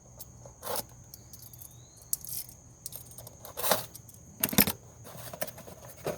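Metal hand tools clinking: a few separate sharp clinks, the loudest about four and a half seconds in, as work starts on unbolting the first ignition coil with a 10 mm socket.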